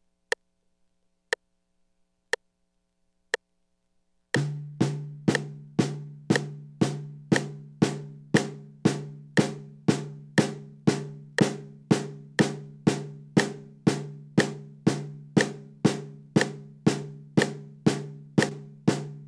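Four short clicks a second apart count in. Then a snare drum is played in single strokes, left and right sticks alternating and starting with the left, at an even two strokes a second (eighth notes), each hit ringing briefly.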